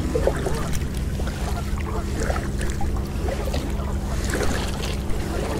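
Kayak paddle strokes with water splashing and dripping, over a steady low rumble of wind on the microphone.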